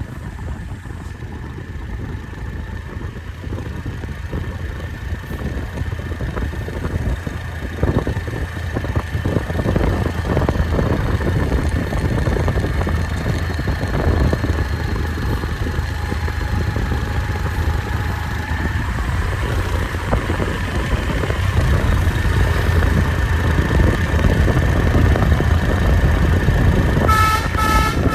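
Intercity bus engine and road rumble, growing steadily louder, with a faint steady whine above it. Near the end the Basuri V3 telolet horn starts its multi-note musical tooting.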